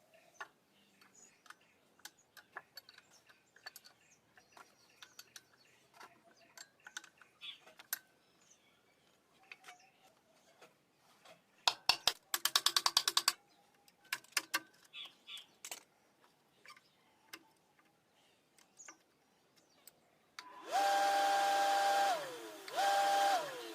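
Small electric motor switched on twice near the end, each time running with a steady whine and then falling in pitch as it coasts down after switch-off. Before that, scattered clicks and taps of parts being handled, and a loud fast rattle of clicks lasting about a second and a half.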